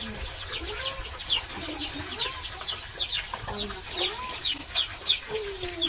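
Chickens calling around a yard: a run of short, high, falling peeps, about three a second, over lower clucking notes.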